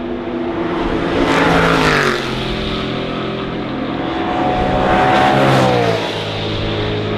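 Racing cars passing at speed, engines at high revs. Two cars go by, about two seconds and five and a half seconds in, and the engine pitch drops as each one passes.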